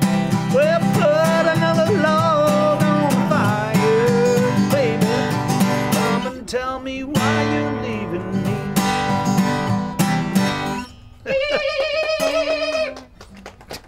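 Acoustic guitar strummed in a steady country rhythm, with a voice carrying the melody over it. About eleven seconds in the guitar stops and the voice holds a last wavering note on its own.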